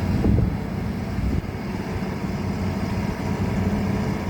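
Excavator's diesel engine running steadily at a low, even hum.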